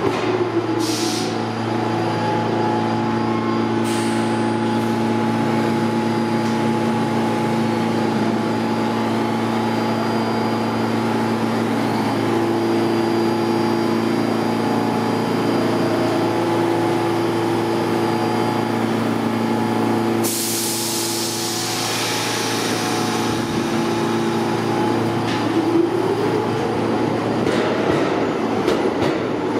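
R46 subway train standing at the platform with a steady electrical and mechanical hum. Its motors wind down in pitch as it stops, air hisses briefly twice soon after, and a longer hiss of released air comes about two-thirds in. Near the end it pulls out, its motor whine rising in pitch.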